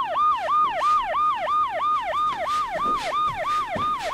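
A siren-style electronic wail repeating about four times a second. Each sweep holds a high note, falls by about an octave, then jumps straight back up.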